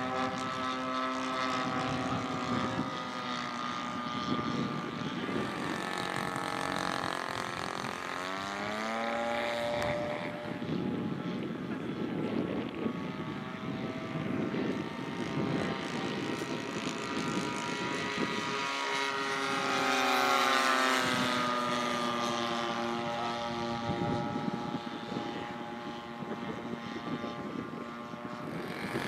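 Propeller engines of radio-controlled scale WWI biplane models in flight: a continuous buzzing drone whose pitch glides up and down several times, loudest about twenty seconds in.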